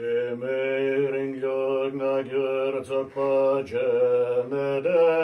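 A man chanting Tibetan Buddhist prayers in a steady, low monotone, breaking briefly for breath, starting suddenly out of silence.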